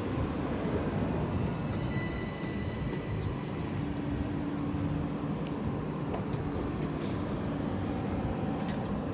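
A 12-car Class 377 Electrostar electric multiple unit rolling past, with a steady rumble of wheels on rails. A faint steady hum rises over it about halfway through.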